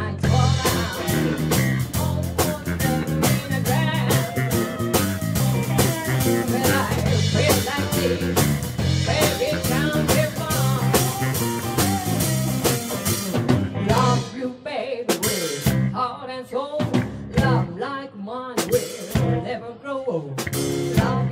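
Live blues-rock band playing a 1960s blues-rock cover, a woman singing lead over electric bass, drum kit and congas. About two-thirds of the way through the steady low end drops out, leaving the voice over scattered drum hits.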